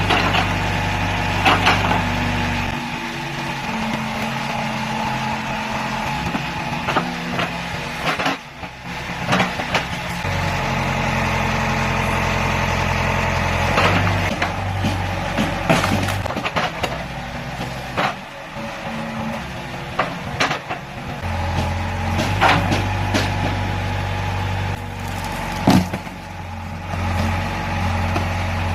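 CASE backhoe's diesel engine running under changing load, easing off and picking up again several times, with sharp cracks and snaps of wood as the tree stump and its roots are torn out.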